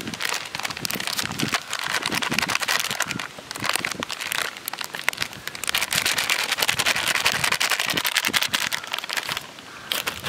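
Thin plastic flour packet crinkling as it is squeezed and shaken to tip gram flour out, in two spells with a lull of about two seconds between them.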